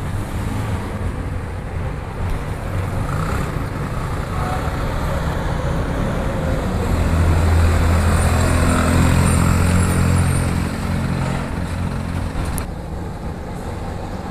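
Small petrol engine of a yellow 150 cc UTV running as the buggy is driven along the street, getting louder and rising slightly in pitch to its loudest about halfway through, then fading as it pulls away, over street traffic noise.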